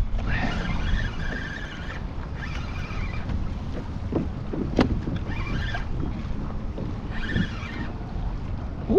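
Small waves washing and slapping against a kayak hull as it moves through choppy water, in washes every two to three seconds, over a steady low rumble of wind on the microphone. A single sharp click comes about five seconds in.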